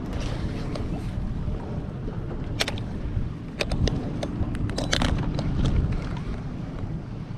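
Wind rumbling on the microphone, with a cluster of sharp clicks and taps about three to five seconds in as a baitcasting rod and reel are handled.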